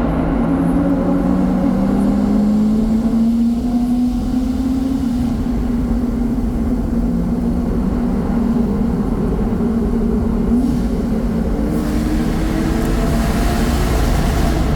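Lotus Exige sports car engines running under load, their note climbing slowly through the first five seconds, dropping back, and climbing again near the end, over a steady low rumble.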